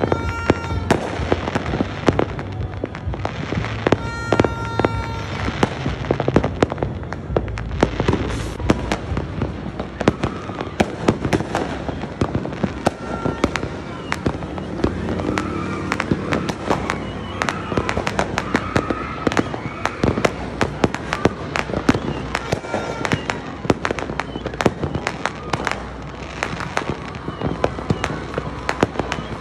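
Fireworks and firecrackers going off without pause: a dense, irregular string of sharp bangs and crackles, with aerial shells bursting overhead.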